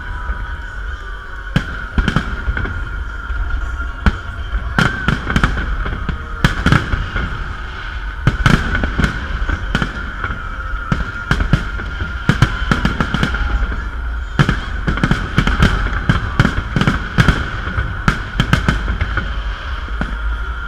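Fireworks salute: aerial shells bursting in an irregular series of loud bangs, often several in quick succession.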